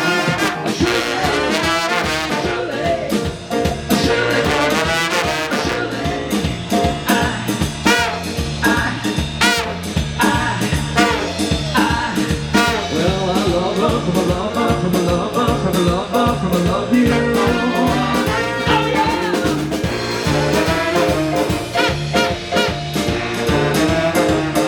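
Live horn band playing an instrumental passage: a brass section over drums and bass with a steady beat.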